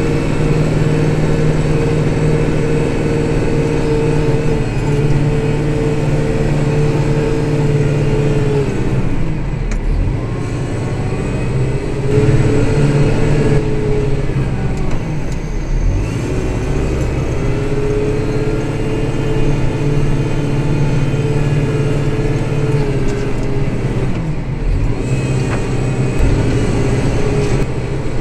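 Kubota Grand L5740 tractor's four-cylinder diesel engine running steadily under load while pushing snow with its front blade, its pitch dipping and recovering three times as the load changes.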